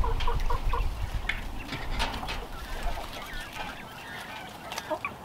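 A flock of young coturnix quail chirping: a quick run of short repeated chirps at the start, then scattered small chirps. A low rumble sits under the first few seconds.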